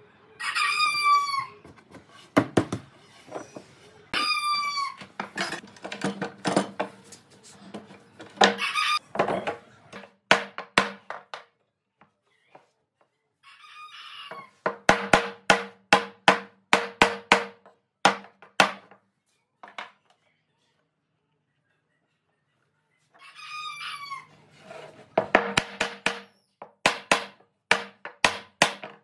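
A rooster crowing several times, each crow a falling call of a second or so. Between the crows come three runs of rapid sharp knocks, about three or four a second.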